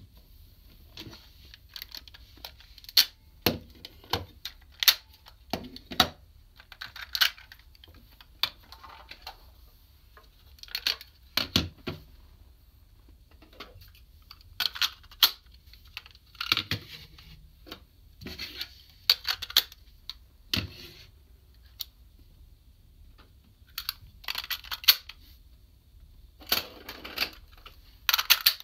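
Hard plastic parts of a DX Kerberios toy robot being handled and fitted together: irregular clicks and knocks as pieces snap and tap against each other, with short scraping rubs between them.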